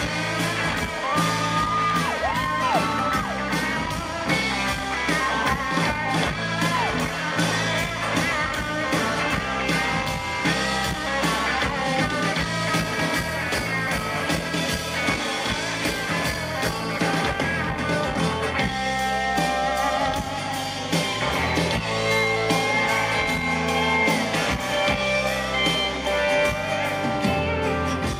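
Live country-rock band playing an instrumental break: guitars, bass and drums with a steady beat, a lead instrument sliding between held notes over it.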